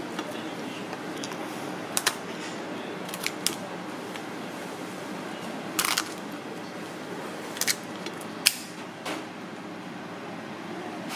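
Kitchen scissors snipping through cooked king crab shell: about half a dozen sharp crunching cuts a second or two apart, over a steady background hum.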